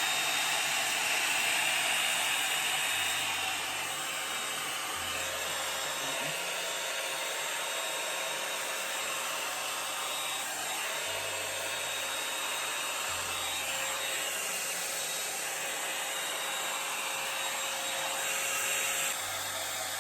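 Revlon One-Step hot-air brush (2-in-1 hair dryer and round brush) running steadily on its low heat setting, its fan blowing air through the hair; a little louder for the first few seconds, then even.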